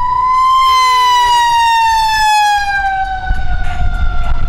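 A siren sounding one long tone that rises briefly and then slowly winds down in pitch. A vehicle engine rumbles underneath, louder from about three seconds in.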